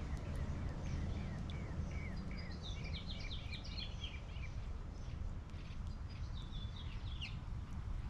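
Small songbirds chirping, a quick run of short high notes from about a second in and a shorter burst near the end, over a steady low rumble.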